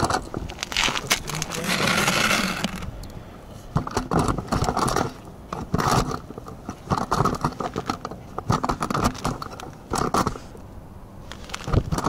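Irregular scraping and crunching on snow and ice, with short knocks, while a line is hauled in by hand from a tripped pike tip-up over an ice hole.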